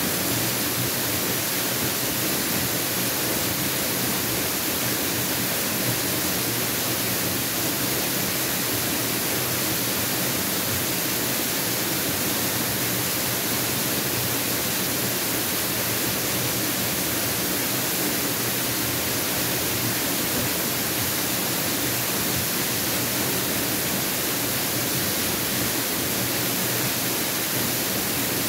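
Mountain waterfall rushing steadily, an even, unbroken hiss of falling water.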